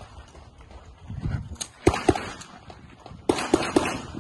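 Pistol shots fired in a practical-shooting stage: after a lull of about a second and a half, a quick pair of shots about two seconds in, then a faster string of about four shots near the end, each with a short echo.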